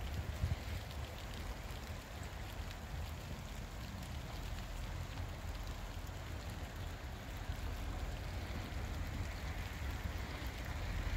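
Steady rain hiss with a low wind rumble on the microphone. A distant GWR Class 165 diesel multiple unit approaches under it, growing a little louder near the end.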